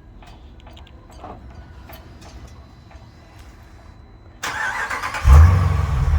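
Jeep Grand Cherokee's Hemi V8 starting: the starter cranks about four and a half seconds in, the engine catches with a loud flare about a second later and settles into a steady low idle. The exhaust runs through straight pipe with the rear resonators deleted.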